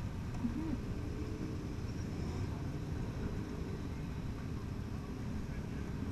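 Motorcycle engines running at low revs among a crowd of bikes, a steady low rumble.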